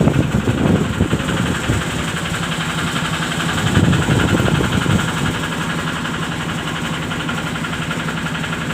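Excavator diesel engine idling steadily, with two louder rough stretches, one at the start and one about four seconds in.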